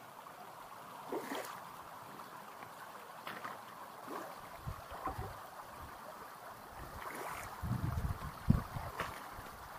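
Shallow moorland stream trickling steadily over flat stones, a soft hiss with small scattered splashes. Wind buffets the microphone in low gusts near the end.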